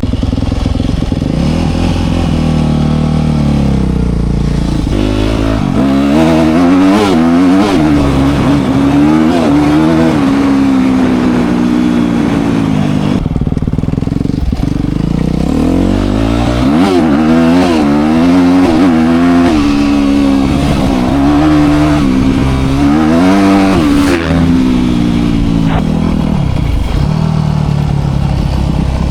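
Dirt bike engine running while being ridden, its pitch climbing and dropping back again and again as the throttle opens and closes, with the longest climbs about six seconds in and again around seventeen seconds.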